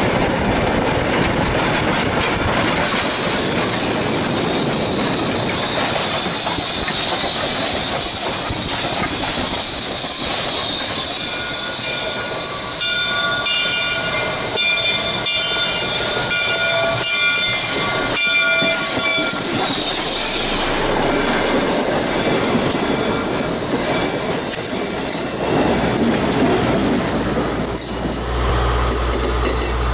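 Steam locomotive and train passing close by, a dense running and rail noise. About halfway through, a steam whistle sounds, several steady chord-like blasts lasting a few seconds, and near the end passenger coaches roll past with a deep wheel rumble.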